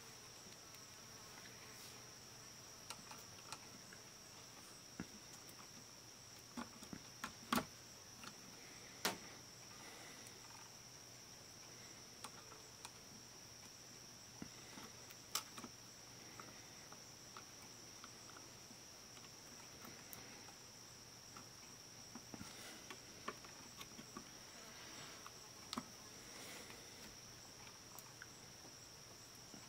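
Faint scattered clicks and taps of a small screwdriver and tiny screws on a portable cassette player's plastic case and circuit board, over a steady high-pitched whine.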